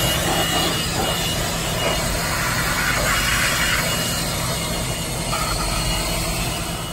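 An 18-volt Milwaukee cordless tool running steadily, a rush of air with a thin high motor whine, cutting off near the end.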